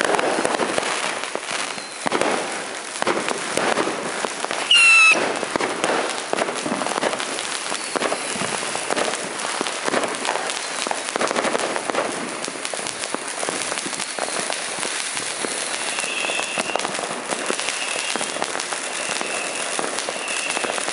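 Phantom Fireworks 'Peach Flower in Spring' box fountain spraying sparks with a steady crackling hiss. About five seconds in, a short, loud screaming whistle cuts through, and a few fainter short whistles come near the end.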